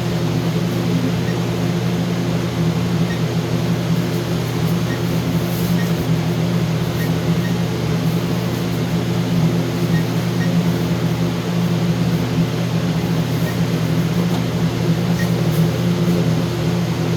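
Steady low mechanical hum that does not change, with faint short high beeps scattered through it about a dozen times, typical of an alarm keypad acknowledging key presses.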